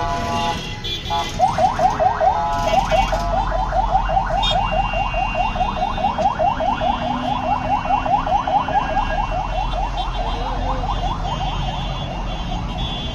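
Electronic alarm sounding as a fast series of rising chirps, about five a second. It starts about a second in and fades near the end.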